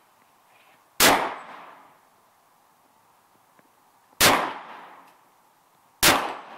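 Three shots from a .40 calibre rifle, about one, four and six seconds in, each a sharp crack with about a second of echo dying away.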